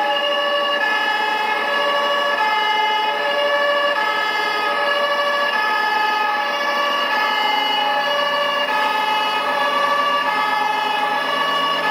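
Two-tone fire-engine siren from an RC model ladder truck's sound module, sounding continuously and switching back and forth between a high and a low note in the German Martinshorn style.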